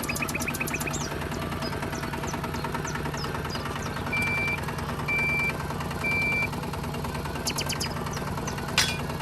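A small motor runs with a steady hum. Three short, high electronic beeps sound about a second apart in the middle, and a sharp click comes near the end.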